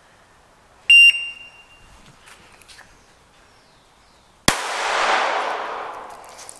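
Electronic shot-timer start beep, one short high tone, then about three and a half seconds later a single pistol shot from a .380 Glock, its crack followed by a long echo that dies away over about two seconds.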